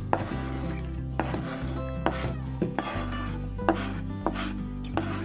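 A knife blade scraping and tapping on a plastic cutting board as chopped shallot greens are swept off into a bowl, in irregular clicks about every half second, over background music.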